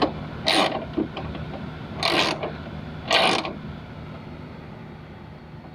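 Ratchet wrench with a 10mm socket tightening a bolt: three or four short runs of ratchet clicking, about a second apart, as the handle is swung back between turns.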